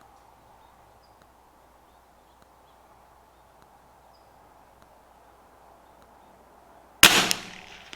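Quiet low background for several seconds, then a single .22 LR rifle shot about seven seconds in, sharp and loud with a short ring-off: a CZ 457 bolt-action rifle firing a round of SK Pistol Match Special.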